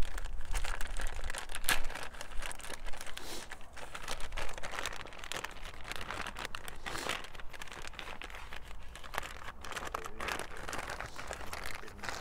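Clear plastic packaging crinkling and rustling in irregular crackles as it is pulled off a new EVAP purge valve.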